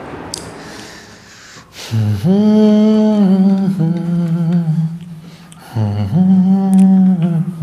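A man humming a tune in long held notes, starting about two seconds in, with a short break a little past the middle.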